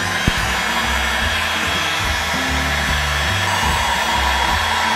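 Heat gun blowing steadily, shrinking heat-shrink tubing over spliced wire joints, with background music and a bass line underneath.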